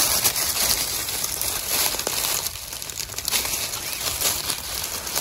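Dry leaf litter and undergrowth rustling and crackling close to the microphone, a continuous scratchy rustle broken by many small snaps.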